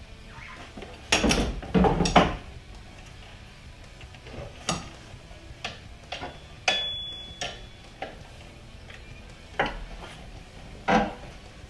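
Metal tools and engine parts being handled in an engine bay: a scattered series of sharp clinks and knocks, the loudest about a second or two in.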